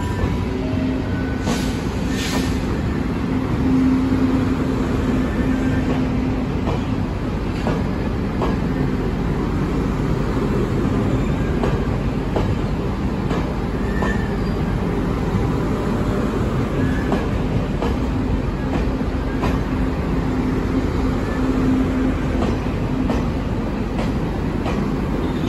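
Passenger coaches of a departing train rolling past: a steady rumble of wheels on rail, with occasional light clicks over the rail joints and a faint steady hum.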